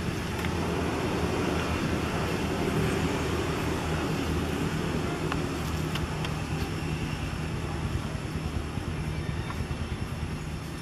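Steady low drone of an engine running somewhere off-screen, easing off slightly near the end.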